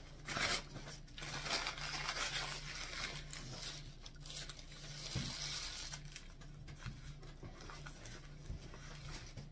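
Dry, crackly tearing and crinkling of dried fish being pulled apart by hand, heaviest for the first several seconds and then thinning out.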